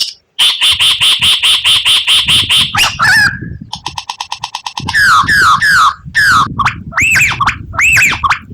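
White-rumped shama (murai batu) singing a varied song. It starts with a rapid run of repeated notes, then gives a fast buzzy trill, and ends with a series of repeated downslurred and arched whistles.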